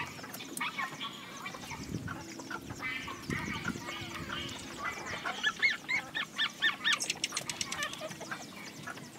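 Young puppies squeaking and whining in short high-pitched calls, with a quick run of rising-and-falling squeals a little past the middle.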